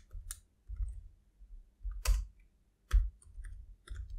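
Computer keyboard being typed on: irregular key clicks, each with a soft thud, a few strokes louder than the rest.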